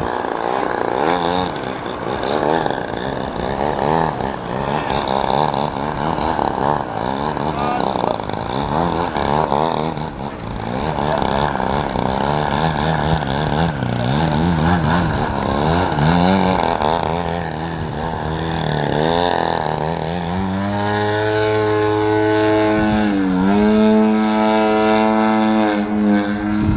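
Extreme Flight Slick 580 RC aerobatic plane's motor and propeller running in flight, its pitch rising and falling constantly with throttle changes and passes. From about twenty seconds in it holds a steadier, louder note, with a brief drop in pitch a few seconds later.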